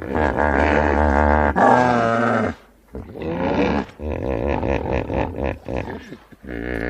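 Hippopotamus calling: a series of about five loud, deep, grunting calls with wavering pitch and short pauses between them.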